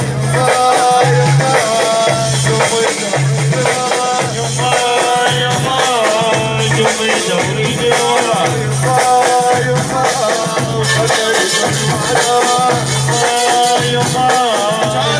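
Instrumental break of Iraqi party music: a steady low beat about once a second under a wavering, ornamented melody line, with shaker-like percussion.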